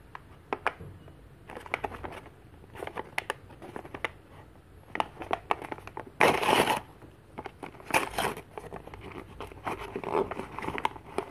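A paper bag being crinkled and torn open by hand: scattered crackles, with a loud rip about six seconds in and another about two seconds later.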